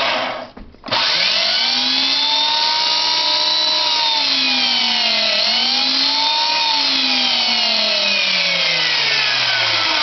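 Electric motor of a 1950s Machine Craft milkshake mixer running with a loud whine. It cuts out briefly about half a second in and spins back up. Its pitch dips once in the middle and falls slowly over the second half.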